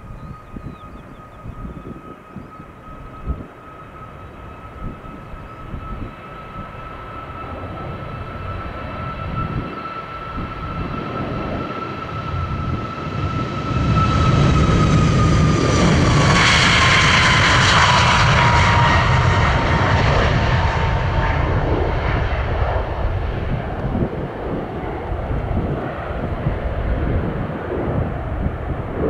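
Large jet airliner taking off and passing by. The engine noise builds to its loudest about halfway through, and a high whine drops in pitch as the aircraft goes past, then the noise eases a little.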